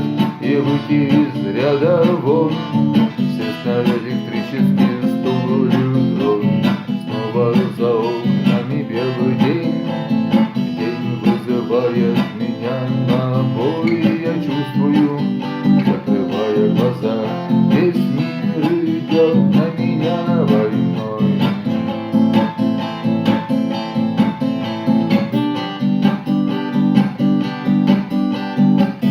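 Instrumental music: guitars strumming chords under a moving lead melody, with no sung words.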